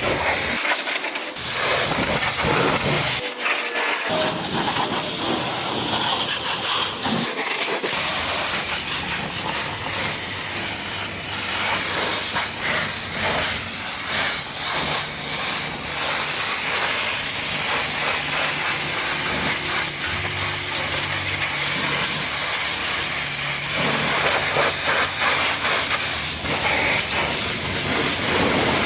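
Pressure washer spraying a high-pressure jet of water onto a muddy truck, a loud, steady hiss.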